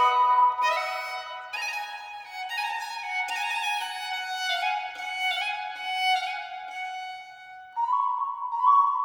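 Instrumental music: a slow melody of held, sustained notes that steps gradually downward, then jumps back up to a higher phrase about eight seconds in.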